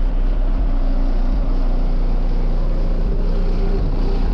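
Four 15-inch Pride subwoofers in a car's sixth-order box playing very loud bass, heard from inside the vehicle, with a deep steady low end and a dense, rumbling overall sound.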